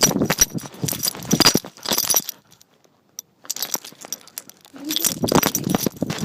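Metal dog tags jingling and the harness-mounted phone being jostled as the dog moves, in repeated bursts with a pause of about a second near the middle.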